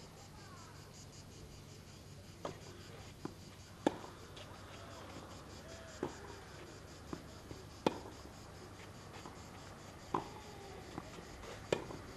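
Tennis ball struck back and forth in a rally on a clay court: sharp racket hits about every two seconds, alternating louder and softer as the near and far player strike, with fainter ball bounces between. A steady insect drone runs underneath.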